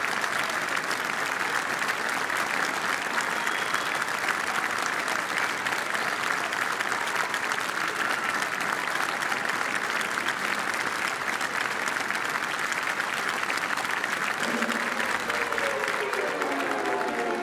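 A large audience applauding: dense, steady clapping. About three seconds before the end, orchestral music begins under the applause.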